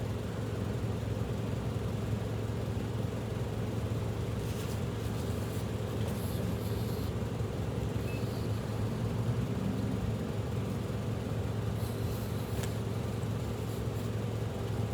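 Steady low mechanical hum and rumble, even throughout.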